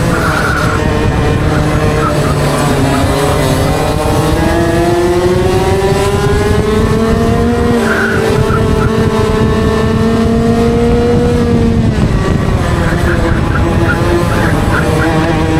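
125cc two-stroke TaG kart engine at racing speed, heard onboard: the revs climb steadily for several seconds, hold high, then drop about twelve seconds in as the kart comes off the throttle for a corner.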